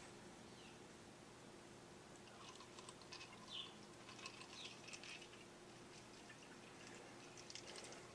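Faint gurgling and glugging of motor oil being poured from a quart bottle into the engine's filler neck, coming in soft irregular spurts, over a faint steady hum.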